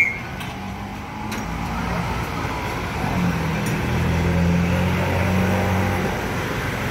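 Slow road-vehicle engines running close by in street traffic, a low steady hum that grows louder from about three seconds in. A short high beep comes right at the start.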